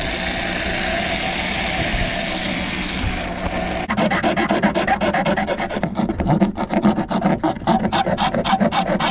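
A drill runs steadily for about three and a half seconds, boring through the cabin headliner, then stops. Fast back-and-forth rasping strokes follow as a flat blade saws out the opening between the drilled holes for a switch.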